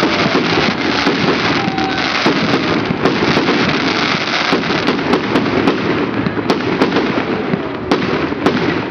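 Fireworks: a dense, unbroken barrage of bangs and crackles from many explosions at once, with a couple of faint whistles gliding through it.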